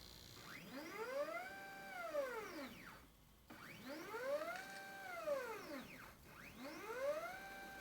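Stepper motors of a DIY CNC plotter, made from scanner and inkjet printer parts, whining through repeated moves. Each move rises in pitch as the motor speeds up, holds a steady tone, then falls as it slows to a stop, about every three seconds.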